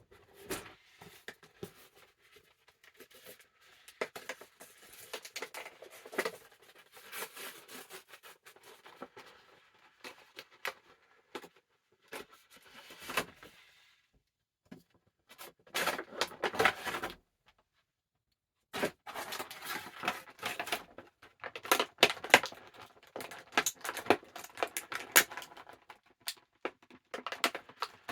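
An action figure's cardboard-and-plastic box being opened by hand: irregular crinkling, tearing and clicking of plastic and cardboard, with a short pause about two-thirds of the way through and busier handling near the end.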